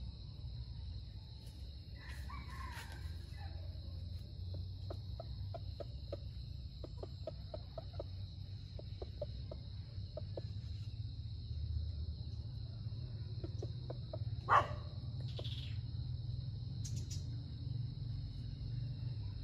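Junglefowl clucking softly in quick runs of short low notes, with a brief call a couple of seconds in and a sharper single call about fourteen seconds in, over a steady high-pitched insect drone.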